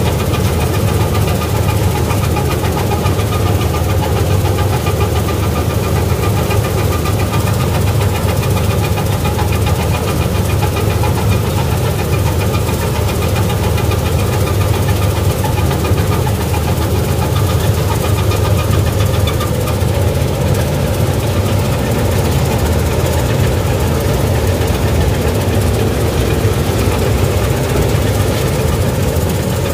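Gill 961 combine harvester's engine and threshing machinery running steadily as it cuts wheat, a loud even hum heard close up from the operator's seat.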